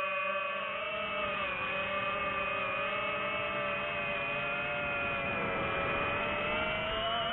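Quadcopter drone's motors and propellers whining steadily as it flies. The pitch dips a little about a second and a half in and again around five seconds, then rises near the end as the motors change speed.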